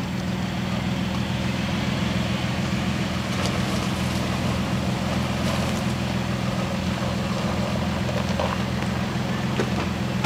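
Off-road 4x4 engine running steadily at an even, low speed, with no revving.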